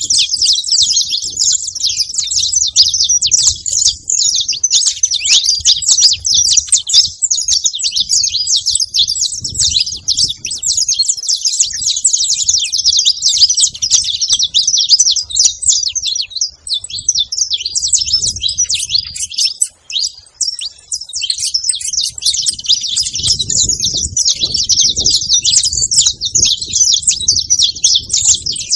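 Saffron finch singing, a long dense run of rapid high chirps and trills with a brief pause about twenty seconds in.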